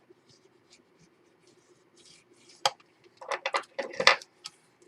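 Paper and chipboard being handled on a work table: light rustling, a sharp tap about halfway through, then a short flurry of taps and rubbing near the end, the loudest just before it stops.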